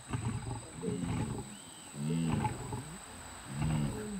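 Lionesses calling: four short, low moaning calls about a second apart, each rising and then falling in pitch, the later ones louder.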